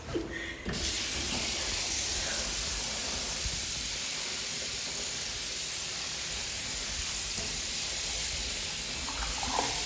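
Tap water running steadily from a bathroom sink faucet, turned on less than a second in.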